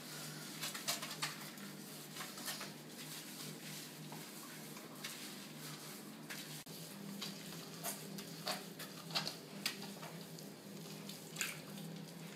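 Rubber-gloved hands scrubbing shampoo into a wet Yorkshire terrier's coat: irregular wet crackling and squelching, over a steady low hum.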